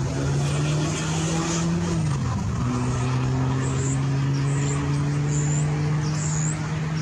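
A motor vehicle engine running steadily with a low hum. Its pitch drops about two seconds in and then holds steady. A few short high chirps sound over it in the second half.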